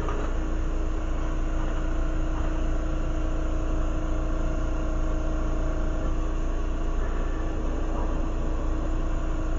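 Steady rushing of a glassblowing torch flame, with a low steady hum underneath.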